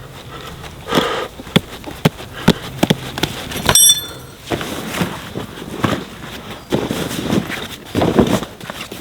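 Handling noises: scattered knocks and short rustles, with one brief ringing clink a little before four seconds in.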